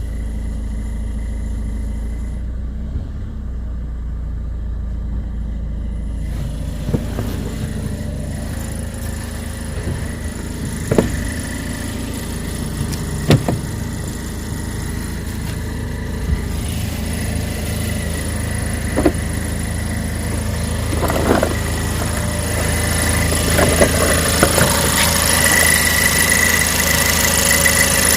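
Cadillac ATS engine idling steadily, with short, sharp rattling knocks every few seconds. The rattle comes from a broken exhaust bracket by the oil filter.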